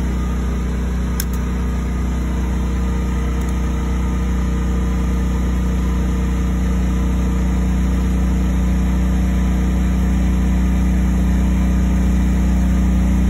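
Westinghouse WGen9500DF portable generator running steadily on propane, growing slowly louder as it takes the added load of a second electric-motorcycle charger and works harder. A single short click about a second in.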